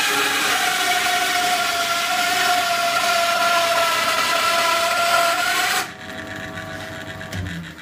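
Homemade wooden bandsaw cutting through a piece of wood: a steady whine with a loud rasping sawing noise. About six seconds in the cut ends and the noise drops sharply, leaving the saw running more quietly, with a low knock near the end.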